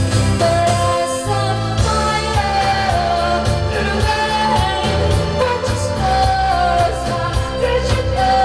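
Pop song: a singer holding long, sliding notes over a full backing track with bass and drums.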